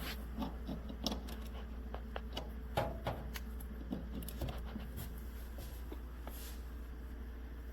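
Scattered light clicks and knocks of objects being handled, busiest in the first five seconds and sparser after, over a steady low hum.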